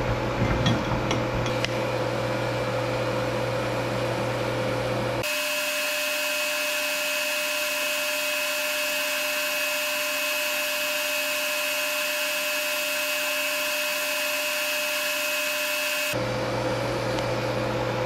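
TIG welding arc run without filler rod: a steady hiss with a faint high whine, starting abruptly about five seconds in and cutting off about eleven seconds later. Before and after the weld there is a steady low hum, with a few metal clinks near the start.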